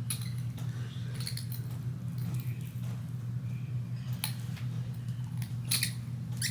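Small items and packaging being handled, giving a few short clicks and rustles over a steady low hum.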